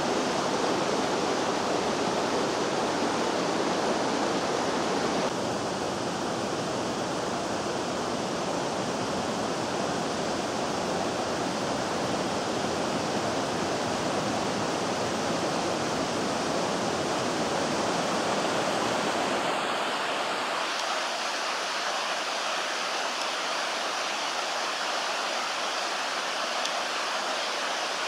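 The Vydra, a boulder-strewn mountain river, rushing steadily over rocks. The sound shifts abruptly about five seconds in, and again about twenty seconds in, where its deep rumble drops away.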